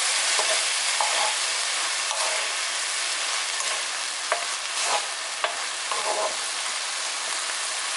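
Chopped green chillies, onion and dried anchovies sizzling steadily in oil in a frying pan as they are stir-fried, with a few sharp clicks and scrapes from the stirring.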